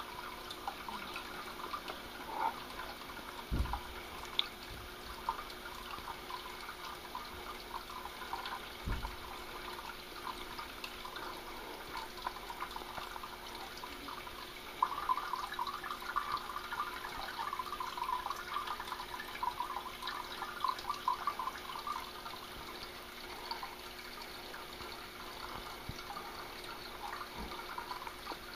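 Water trickling and dripping steadily, busier in the middle, over a faint steady hum, with two low thumps in the first ten seconds.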